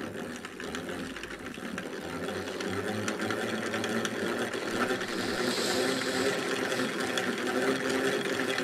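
3D-printed hand-crank generator being cranked by hand, its rotor spinning with a steady mechanical whir. It picks up speed and gets louder over the first few seconds, then runs steadily.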